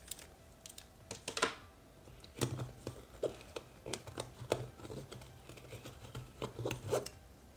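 Rustling, scraping and light clicks of hands handling coiled USB cables and pushing them into the elastic pocket of a fabric-lined hard carry case.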